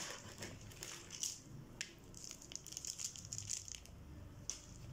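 Gritty potting mix with pumice and zeolite being scooped out of a plastic basin with a small plastic pot and poured into a larger plastic pot. Faint, irregular rustling and scraping of grains, with a slightly louder pour near the end.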